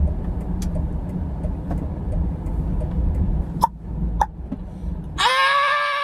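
Steady low road and engine rumble inside a moving car's cabin, with a few faint clicks. About five seconds in the rumble stops suddenly and a loud, high-pitched yell lasts about a second.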